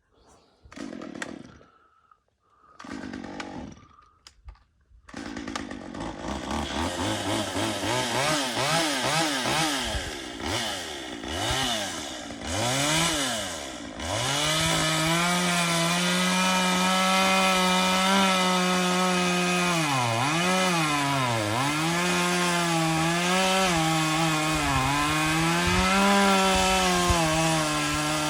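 Chainsaw starting with a few short sputters, then revving up and down. From about halfway through it runs at steady high revs, its pitch dropping sharply twice as it cuts into the wood.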